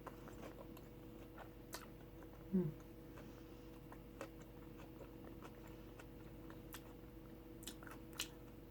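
Person chewing a mouthful of soft taco, with small wet mouth clicks scattered throughout and a brief low hummed "mm" about two and a half seconds in.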